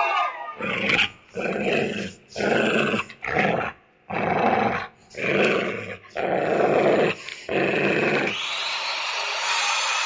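Wolf growling and snarling sound effect, in a string of about eight rough bursts with short gaps between them. A little past eight seconds in, the growling stops and a steady noise takes over: the start of a saw sound effect.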